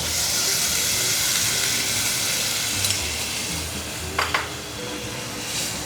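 Sauce of minced chicken and fermented bean paste sizzling hard in a hot pan as cornstarch is added, the hiss slowly easing off. A single sharp click about four seconds in.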